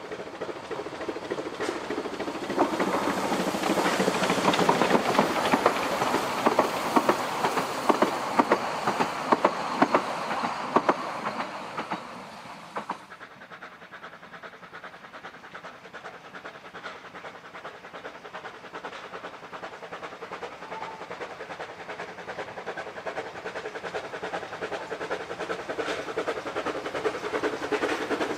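Vale of Rheidol narrow-gauge 2-6-2 steam tank locomotive passing with its train, its wheels clicking sharply over the rail joints for several seconds. After an abrupt change to a quieter sound, a second steam train approaches, growing steadily louder near the end.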